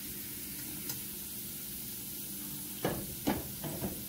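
Diced potatoes frying in a skillet, a steady sizzle. About three seconds in, a few sharp knocks and clinks come over it.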